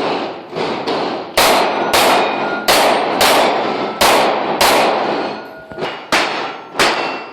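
Rapid string of 9mm pistol shots, about a dozen in seven seconds at an irregular pace, with steel target plates clanging and ringing as they are hit.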